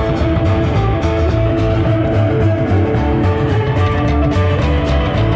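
Rock and roll band playing an instrumental passage with no vocals: guitar leads over a pulsing bass and drums.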